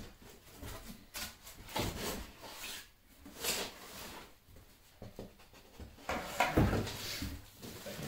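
Handling sounds as a model airplane fuselage is lifted out of a cardboard box: scattered rubbing and scraping against the cardboard, then a heavier thump about six and a half seconds in as it is set down on the workbench.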